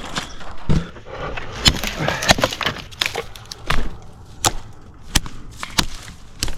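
Wood knocking and snapping: about a dozen irregular sharp cracks and knocks, with a stretch of dense crackling around two seconds in.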